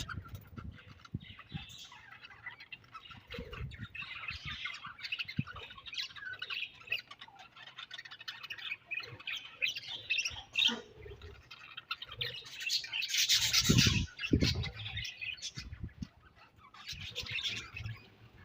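A colony of budgerigars chattering, with continuous overlapping chirps and squawks. About two-thirds of the way through there is a louder burst of calls along with a few low thumps.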